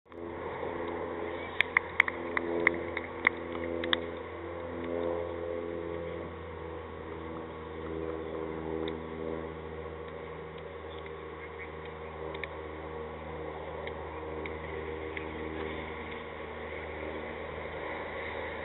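Open-air ambience from a cricket-field microphone: a steady low hum with faint voices, and a handful of sharp claps between about one and a half and four seconds in as the fielders celebrate a wicket.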